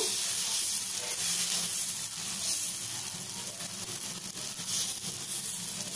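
Khara dosa batter sizzling steadily on a hot nonstick tawa as a ladle spreads it in circles.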